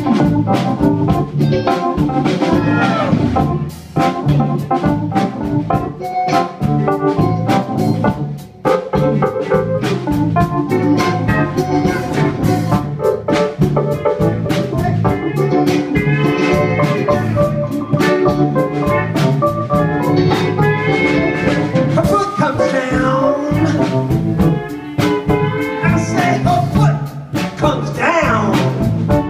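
A live band plays with drum kit, electric bass, electric guitar, keyboards and pedal steel guitar over a steady beat, with gliding notes heard several times.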